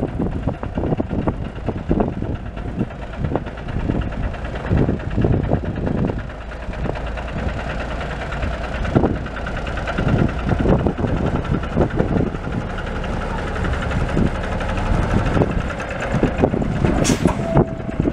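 Cummins turbo diesel of a 1985 International COF9670 cabover semi tractor idling steadily. A short high hiss comes near the end.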